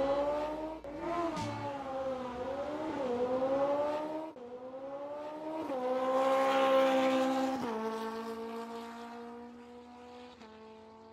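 Race car engines revving up and down, their pitch rising and falling several times, then holding steadier and dropping before fading out near the end.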